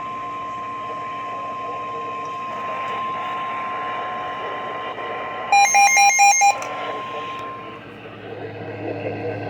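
Steady electronic alert tone of about 1050 Hz, the NOAA Weather Radio warning alarm tone, played through a radio; it stops shortly before the end. About halfway through, a louder burst of rapid electronic beeping lasts about a second.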